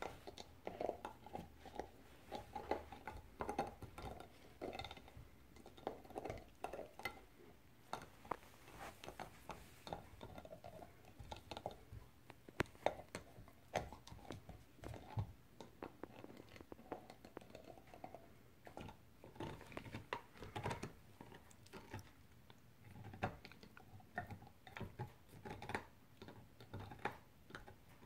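Yellow Labrador puppy gnawing a hard chew, with irregular clicks and scrapes of teeth on the chew.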